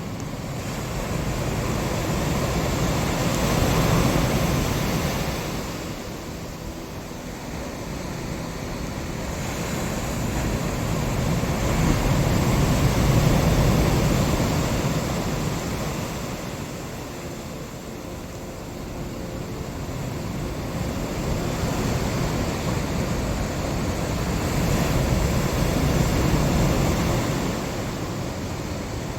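Ocean surf: a rushing wash of waves that swells and fades slowly, three times.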